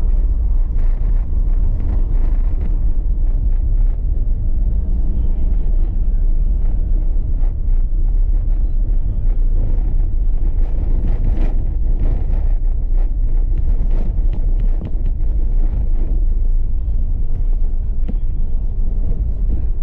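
Car driving over a bumpy sand-and-dirt track, heard from inside the cabin: a steady low rumble of engine and tyres, with scattered knocks and rattles as it jolts over the ruts.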